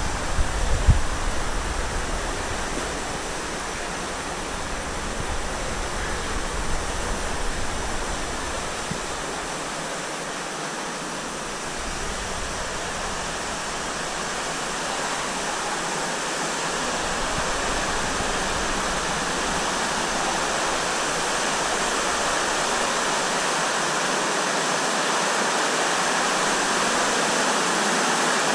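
Steady rush of running water from water slides, growing gradually louder, with a few low thumps in the first second.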